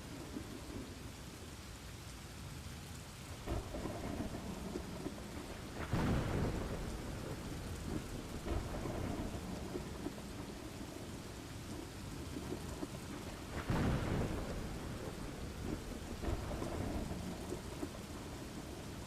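Steady rain with rolling thunder. Two louder rumbles stand out, about a third of the way in and again about three-quarters through.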